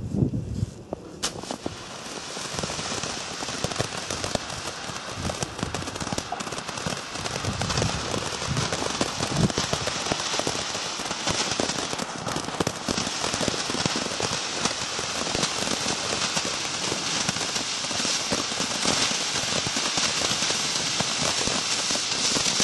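Weco Chrysanthemen Class 2 ground fountain burning: a steady hissing rush of sparks with dense crackling, starting with a sharp crack about a second in and building over the next second or two.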